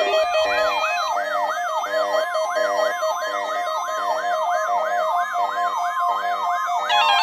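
Electronic emergency-alert alarm: a fast siren-like yelp sweeping up and down about three times a second over a pulsing lower beep, with a brief higher warble near the end. It is the alert signal for a weather radio Required Weekly Test.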